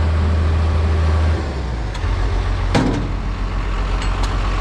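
Backhoe's diesel engine idling; its low note drops a little over a second in. A sharp knock comes a little past the middle, with a few fainter clicks around it.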